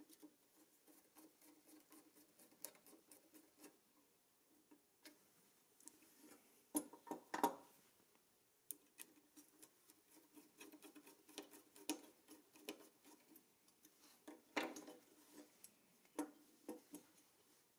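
Small metal front-axle parts of a toy car being handled and fitted by hand, with a small screwdriver on a screw: faint clicks and light taps of metal on metal and on a wooden bench. Louder runs of taps come about seven and fifteen seconds in.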